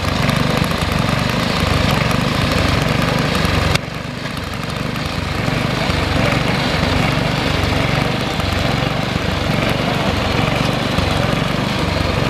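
Engine of an old walking tractor running under load, driving a rear rotary tiller through dry soil with a steady low pulsing beat. The level drops abruptly about four seconds in.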